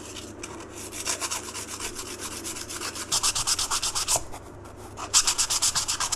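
Sandpaper rubbed by hand over the metal hub and gear ring, scuffing the surfaces so the epoxy will grip. Quieter scrubbing at first, then two spells of fast back-and-forth strokes, about ten a second, starting about three seconds in and again near five seconds.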